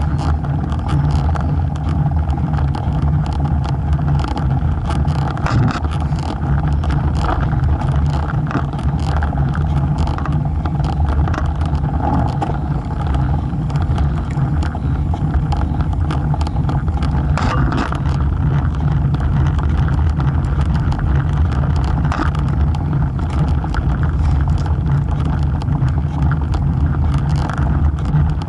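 Steady riding noise from a road bike rolling on asphalt, picked up by a camera mounted by the front wheel: a loud low rumble of wind on the microphone and tyre on the road, with small ticks and rattles throughout.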